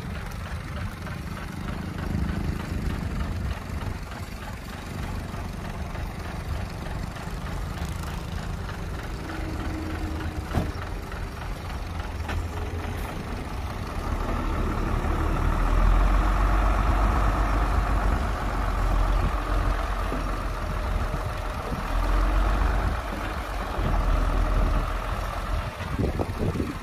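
Heavy diesel engine running steadily. It grows louder about fourteen seconds in and stays louder.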